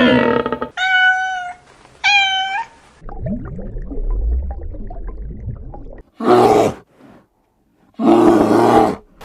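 A run of separate animal calls, one after another. It opens with a falling call and two short pitched calls about a second apart, then a low rumble for about three seconds, and ends with two shorter, harsher calls.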